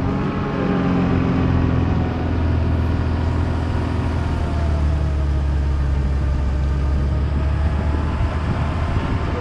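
Off-road 4x4's engine running steadily, its revs easing slowly down over several seconds.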